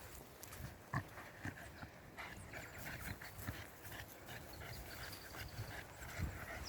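Footsteps walking on a dirt bush track: irregular soft thuds, with a sharper knock about a second in.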